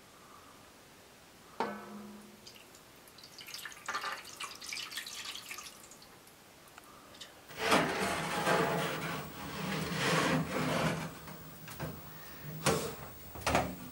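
Water poured from a glass pitcher into a round metal tray around bowls: a splashing rush lasting a few seconds. Near the end come a few sharp metallic knocks as the tray is slid into a wood stove's oven.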